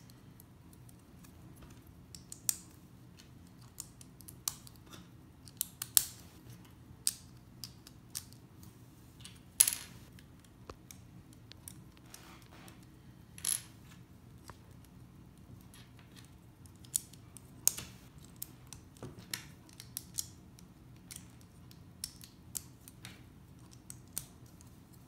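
LEGO plastic bricks clicking as they are pressed and snapped together by hand: irregular sharp clicks every second or so, a few louder than the rest.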